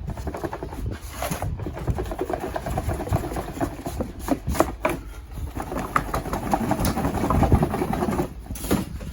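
Cardboard box and packing scraping and rustling as a tower fan jammed tight in its box is pulled and worked at, a rough continuous scraping with scattered sharp clicks.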